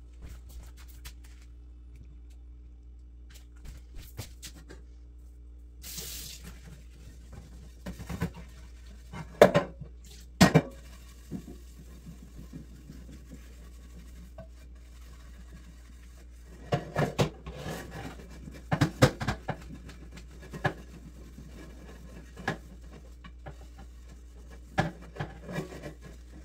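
Glass baking dish and dishes knocking and clinking in a stainless steel sink as they are handled and scrubbed, in scattered clatters, over a steady low hum.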